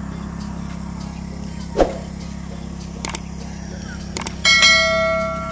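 A steady low motor-like hum throughout. Near the end, mouse-click sound effects and then a bell chime that rings and slowly fades, from a subscribe-button animation.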